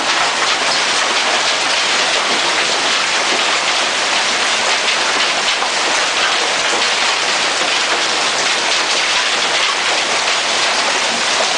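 Heavy hailstorm: golf-ball-sized hailstones falling and striking the surfaces around in a dense, steady clatter.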